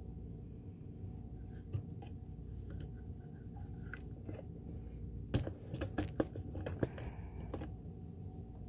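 Small clicks and scrapes of hands working in the open mechanism of a Kenmore sewing machine during cleaning, with a cluster of sharper clicks a little past halfway.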